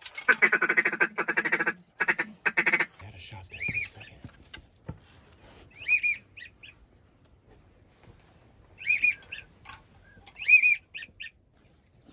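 Waterfowl calling: a loud run of rapid, harsh call notes for about three seconds, then falling whistled calls, each followed by two or three short notes, in four groups a couple of seconds apart.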